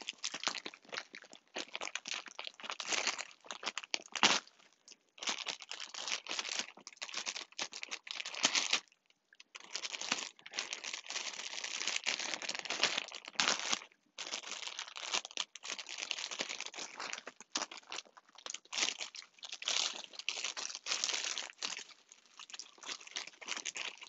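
Packaging around a plush toy being crinkled and torn open by hand, in irregular spells of rustling with brief pauses.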